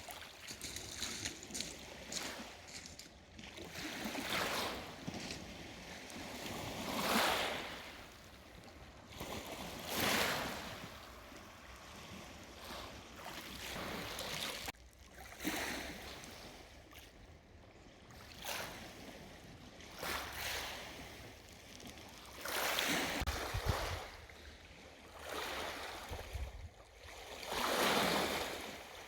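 Waves washing in on the shore of a large lake, each one a swell of rushing water that rises and falls away, coming every two to four seconds. A low rumble of wind on the microphone comes in under a few of the later waves.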